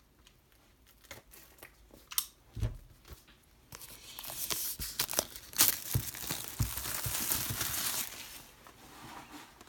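Plastic shrink-wrap being torn and crinkled off a DVD box set. A few light taps come first, then about five seconds of continuous crackling starting around four seconds in, fading near the end.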